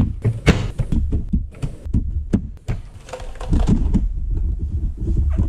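Plastic clicks and clacks as keycaps are pulled off a Filco Majestouch mechanical keyboard and dropped on the work mat, with low thumps as the keyboard is handled and turned over.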